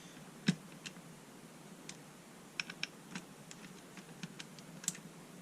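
Irregular light clicks and taps of small hard parts being handled and fitted, about a dozen in all, the sharpest about half a second in and near the end.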